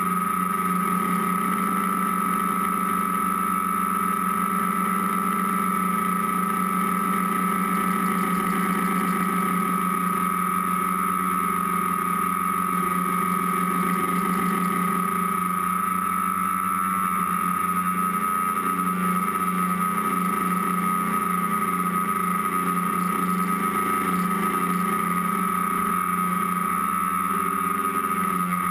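Electric motors and propellers of an FPV tricopter in flight, heard from its onboard camera: a steady buzz with a high whine that holds a nearly constant pitch.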